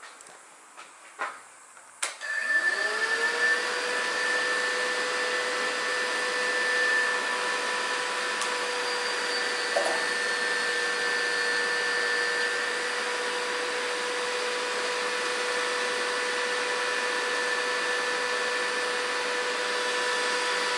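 Kawasaki ZX-10R's electric radiator cooling fan switching on about two seconds in after a few clicks: its whine rises quickly, then holds steady over a rush of air. The fan is running with the engine off, apparently triggered because a sensor was left unplugged.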